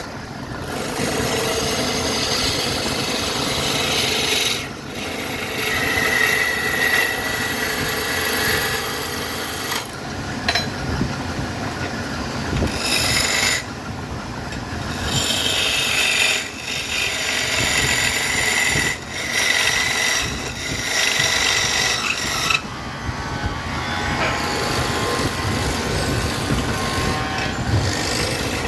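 Woodturning lathe spinning a glued-up wooden-veneer bowl blank while a turning tool scrapes and cuts it, in long passes broken by brief pauses every few seconds as the tool comes off the wood.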